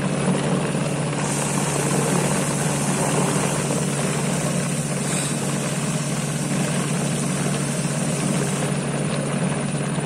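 Electric mixer motor running steadily with a low hum, its blade churning a thick batch of mayonnaise in a large stainless steel bowl.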